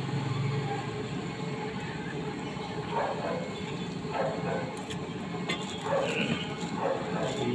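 Roadside street noise: a steady traffic rumble, with a vehicle's low hum fading away in the first second and faint voices in the background.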